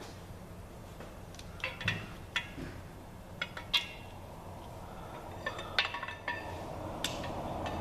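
Light metallic clinks and taps of a cam bearing installer tool's collar and bar against the cam bearings and block as the tool is worked through the cam bore, a dozen or so scattered strikes with a short ring.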